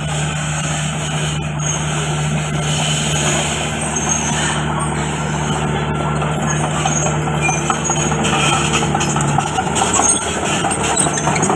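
Komatsu D31PX bulldozer's diesel engine running steadily under work, a steady low drone that eases off about nine and a half seconds in.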